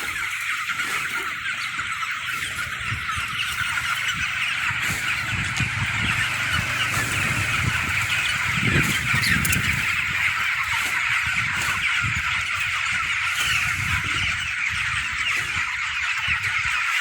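A large flock of chickens in a poultry house, many birds calling at once in a dense, unbroken din of overlapping chirps and clucks. A low rumble rises briefly about halfway through.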